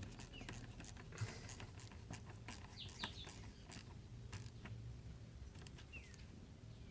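Faint, irregular clicks and taps of a 6 mm socket working the hose clamps on an intake boot, with a few short, high falling chirps.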